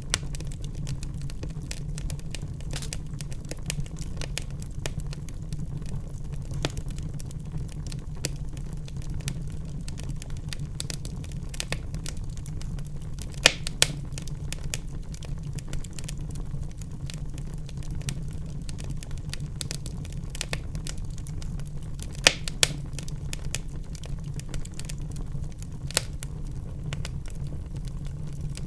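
Wood fire in a fireplace crackling, with a steady low rumble of the flames under scattered sharp pops, a few of them louder: a pair about halfway through, another pair a little later and one near the end.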